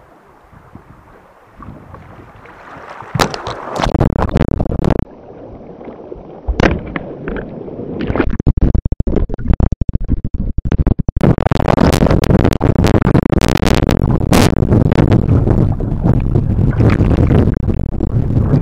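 A sea kayak capsizing in river current. Splashes come as the boat goes over, and then water rushes and churns loudly around the submerged deck-mounted camera. The sound cuts in and out around the middle as the camera dips under, then turns into a steady underwater rush from about two-thirds of the way in.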